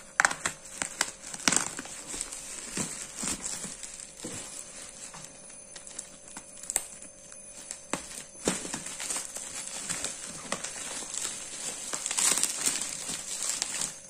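Plastic mailer bag and bubble wrap crinkling and rustling as they are pulled open by hand, with irregular crackles and clicks.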